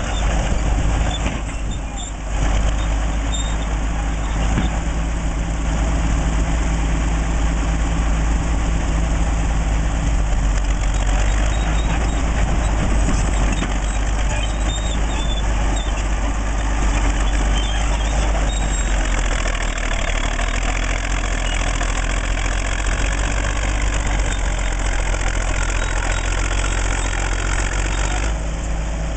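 1940s Caterpillar D8 bulldozer's diesel engine running steadily, with a brief dip about two seconds in and a deeper, heavier note from about two-thirds of the way through.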